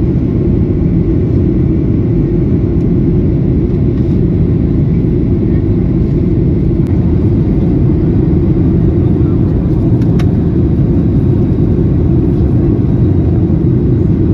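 Steady low rumble of engine and airflow noise inside a Boeing 737-800's cabin, with no change in level.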